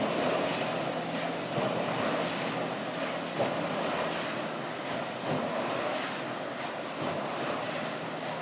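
Steady rush and splash of water spilling through the large iron water wheel of a water-powered flour mill as it turns.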